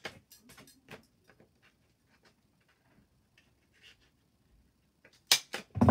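Handheld hole punch worked on thin card: a few faint clicks and card handling, then sharp clicks of the punch closing about five seconds in, with a dull knock.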